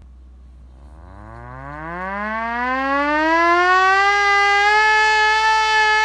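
Handheld hand-cranked air raid siren winding up: starting about a second in, its wail climbs steadily in pitch and loudness as the crank is spun faster, then levels off into a steady high wail for the last second or so.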